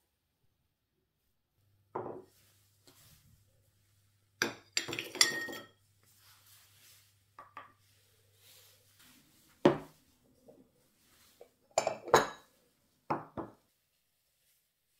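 Kitchen dishes clinking: ceramic and glass bowls set down on a wooden table and a metal spoon knocking against them, in a series of separate sharp knocks with a busier cluster near the start.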